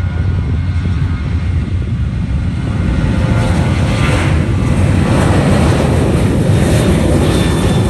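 Twin-engine jet airliner's engines running at high power as it rolls down the runway: a loud, steady roar, with a brighter hiss about four seconds in.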